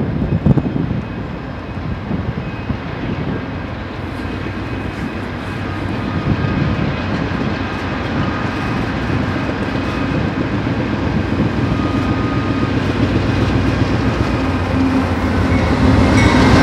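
Norfolk Southern diesel freight locomotive approaching under power, its engine exhaust smoking, with a steady rumble that grows louder as it nears.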